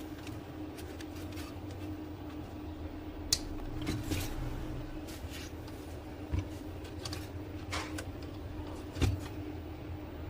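Scattered clicks and taps of small plastic gears being pressed and pried off the paper pickup gear train of an HP LaserJet M1005 laser printer, over a steady low hum.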